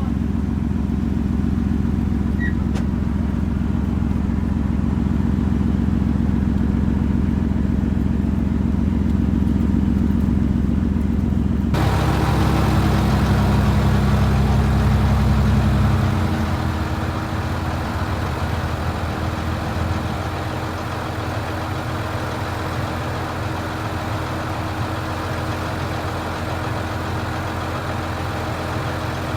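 Motor vehicle engine running steadily. The sound changes abruptly about twelve seconds in, and the low engine note drops off around sixteen seconds in.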